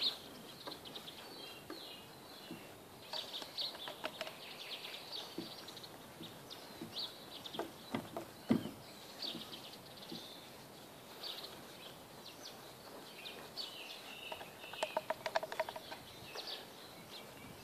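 Small birds chirping and singing, with short high calls scattered throughout and a fast trill of repeated notes about three-quarters of the way in.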